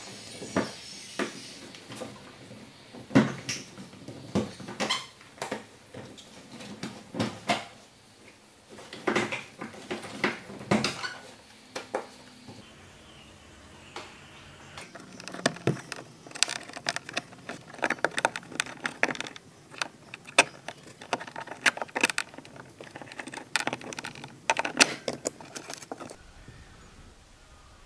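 Irregular clicks, knocks and rattles of plastic interior trim being worked loose by hand in a BMW E39's rear cabin. First the rear headrests are handled, then the headliner's rear reading-light unit is pulled out of its clips.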